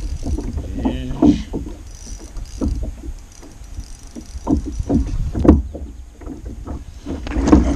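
Scattered knocks and thumps of fishing gear being handled in a plastic fishing kayak, over a low rumble, with three stronger knocks about two thirds of the way through.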